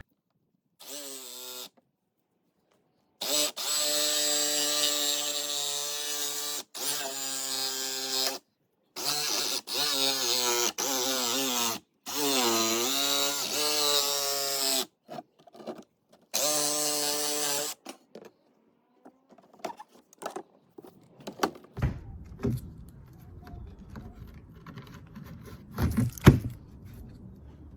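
Electric power tool running in repeated bursts of a few seconds, its motor pitch sagging under load once, while cutting through the camper's aluminum roof for the vent opening. Afterward come scattered quieter clicks and handling knocks, with one sharp knock near the end.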